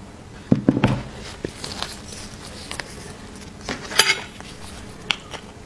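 Roasted beef marrow bones being handled on a lettuce-lined platter as one is picked up: scattered clicks and knocks, the louder ones about half a second in and about four seconds in.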